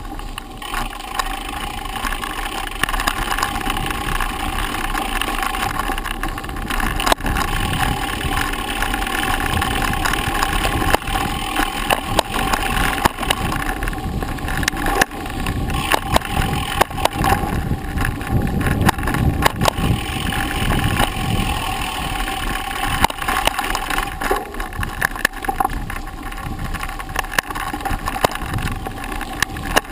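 Mountain bike riding over a rough dirt and gravel forest road, heard from a camera mounted on the bike: a steady rolling rumble and rattle with frequent sharp knocks from bumps.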